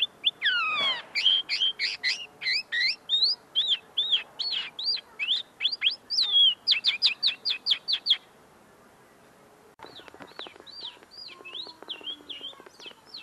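Common linnet singing close by: a fast run of twittering, chirping and trilled notes for about eight seconds, then after a short pause more song, fainter. The owner says the bird is still finishing clearing its notes.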